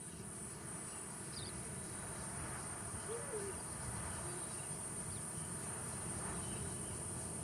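Night-time insect chorus: a steady high-pitched trill, with a low rumble underneath.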